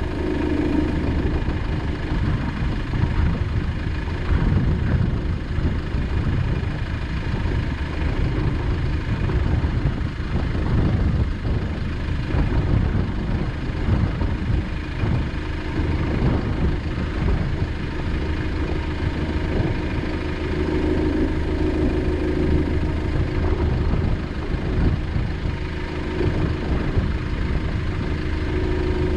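Land Rover Discovery 200 Tdi's four-cylinder turbodiesel engine running steadily at low revs, with many small knocks and rattles throughout.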